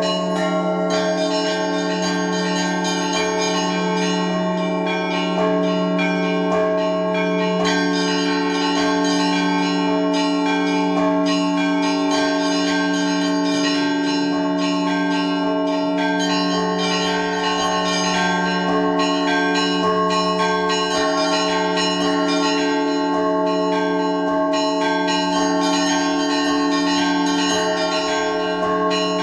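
Russian Orthodox church bells ringing the Easter peal: several bells rung together, with small bells struck rapidly and continuously over the steady hum of a deep bell.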